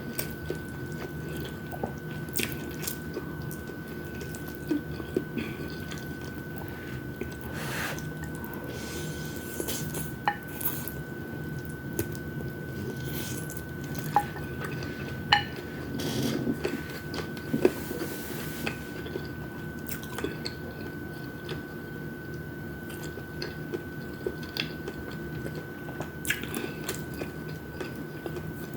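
Close-miked wet eating sounds: chewing and mouth sounds with scattered short clicks from utensils or dishes. Under them runs a steady high whine and a low hum.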